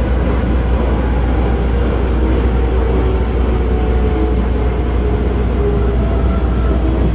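Osaka Metro 22 series subway car running, heard from inside the car: a steady, loud rumble of wheels on rail, with faint whining tones above it.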